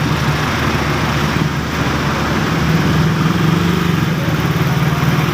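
A vehicle engine idling steadily, with an even, rapid firing rhythm.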